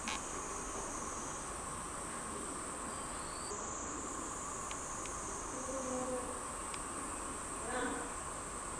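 A steady, high-pitched chorus of cicadas, with a lower steady buzz beneath it.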